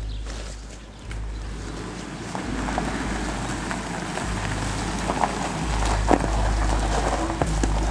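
An SUV driving up a dirt road, its engine and tyres growing louder as it approaches, with a few sharp ticks. Wind rumbles on the microphone throughout.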